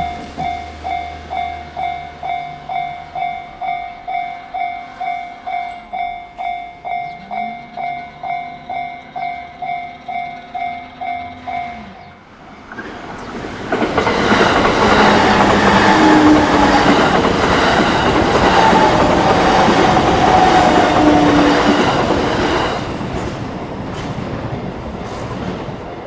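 Japanese level crossing warning bell clanging about twice a second. About halfway through the bell gives way to a JR Minobu Line train passing loudly over the crossing, with wheels clattering and a whine from the train, for about eight seconds before it fades.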